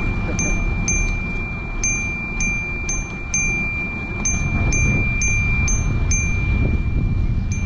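Light metallic tings from a moving bicycle, about two a second and unevenly spaced, each ringing briefly. Under them run a thin, steady high whine and the low rumble of wind and tyres.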